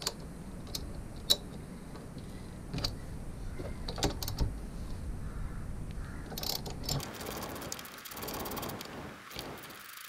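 A socket ratchet clicking and clinking as it loosens the bolts of a Brembo front brake caliper on a motorcycle. The clicks come irregularly, a handful spread over the first seven seconds, over a steady low background noise.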